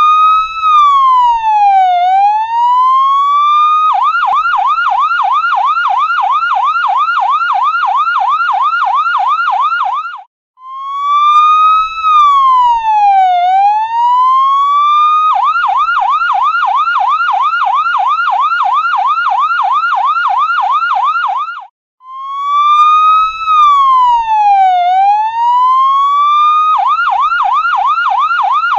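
Ambulance's electronic siren alternating a slow wail, one rise and fall lasting about four seconds, with a fast yelp for about six seconds. The cycle repeats three times, with a brief break before each new wail.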